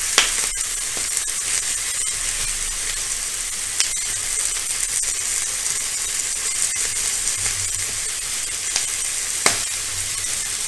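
Chicken drumsticks sizzling on a hot ridged grill plate as sauce is brushed onto them, a steady hiss. There are three sharp taps of the utensils against the grill.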